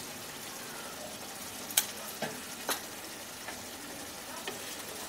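Yogurt-based fish curry simmering in a kadai with a steady sizzle, stirred with a wooden spatula that knocks against the pan a few times, loudest about two seconds in.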